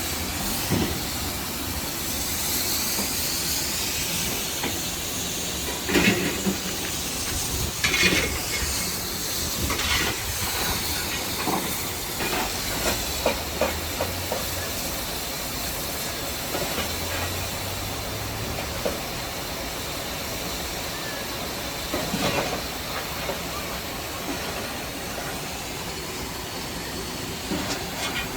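Steam locomotive standing with steam hissing steadily, broken by a few sharp metallic clanks and knocks.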